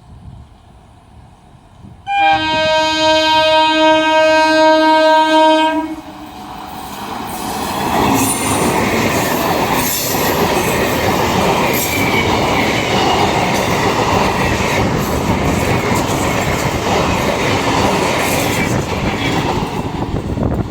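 Indian Railways locomotive horn sounding one long blast of about three and a half seconds, followed by a train passing at speed, its wheels clattering over the rail joints in a steady loud rumble.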